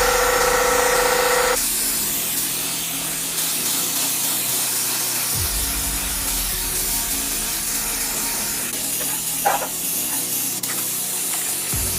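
A pitched machine whine that cuts off about a second and a half in, then a steady spraying hiss, with one brief pitched blip near the end.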